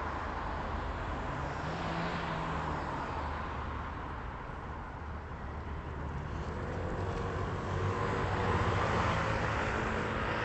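City street traffic: motor vehicles running past with a steady low rumble, one growing louder about eight seconds in.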